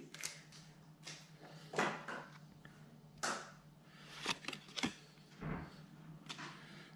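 Pokémon trading cards being handled: a handful of short, soft slides and flicks as the cards of a just-opened booster pack are picked up and sorted through, spread out over several seconds.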